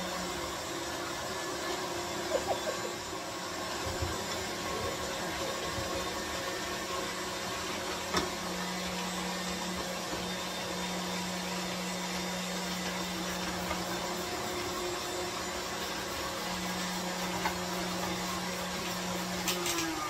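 Electric stand mixer running a rotating-drum shredder attachment as zucchini is pushed through it: a steady motor hum with a few small knocks. The motor winds down with a falling pitch at the very end.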